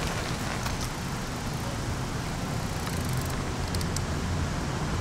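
Steady road traffic noise, the low rumble of passing cars.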